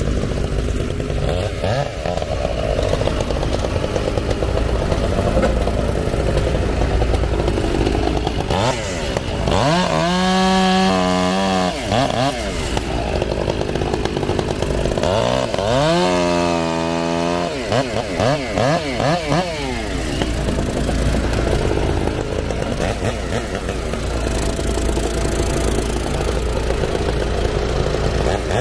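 Gas chainsaw revving up into two cuts, about ten and sixteen seconds in, each a rising then falling whine, over the steady drone of firewood splitter and processor engines running.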